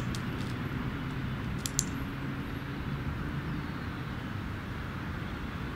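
A dog-training clicker clicks twice, right at the start and again just under two seconds in, each a quick double snap, marking the dog putting its front paws on a stool. A steady low rumble runs underneath.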